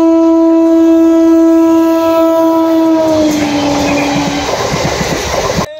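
Train horn sounding one long steady blast, dropping slightly in pitch about three seconds in and fading out, over the rumble and clatter of a train running on the track. The sound cuts off abruptly at the end.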